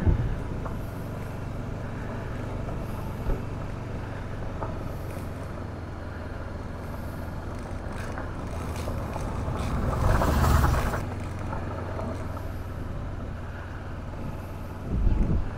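Honda CB500X's parallel-twin engine running steadily under way, with wind noise on the microphone. A louder rush of wind and engine comes about ten seconds in.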